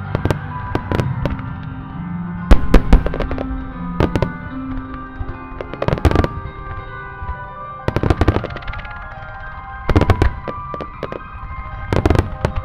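A starmine barrage of aerial firework shells bursting in quick clusters of sharp bangs about every two seconds, the loudest cluster a few seconds in, over recorded music played with the display.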